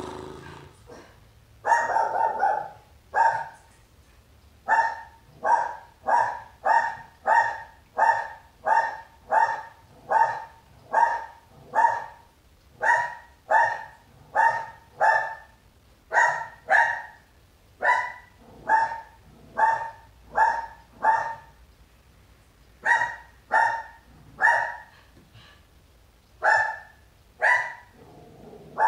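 Dog barking over and over, about one and a half barks a second with a few short pauses, each bark at much the same pitch.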